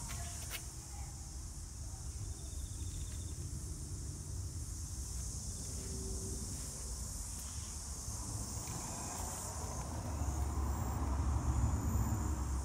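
Outdoor ambience of steady high-pitched insect chirring over a low traffic rumble, with a motor vehicle's engine growing louder near the end as it approaches.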